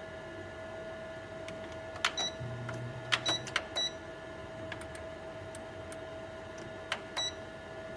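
Cuisinart air fryer toaster oven's control dial clicking as it is turned and pressed, in a quick cluster about two seconds in and again near the end, several clicks with a short high beep, over a steady hum.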